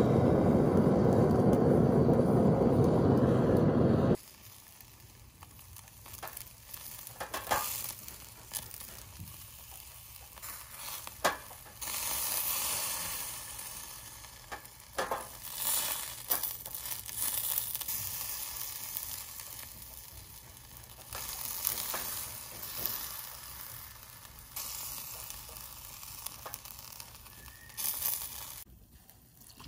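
A handheld gas torch flame runs loud and steady into the charcoal for about four seconds, then stops abruptly. After that, chicken, beef and green peppers sizzle over hot charcoal on a wire grill, the hiss swelling and fading, with occasional sharp clicks of cooking chopsticks against the grate.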